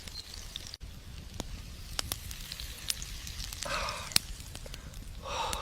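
Burgers frying in a hot pan over a campfire: scattered sharp crackles and pops over a faint sizzling hiss, with two short soft rushes of sizzle, one past the middle and one near the end.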